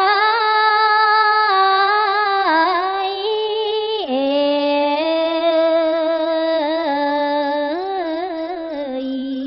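Khmer smot, Buddhist verse chanted by a woman's solo voice in long held, ornamented notes that waver around each pitch. About four seconds in, the melody steps down to a lower pitch and carries on there.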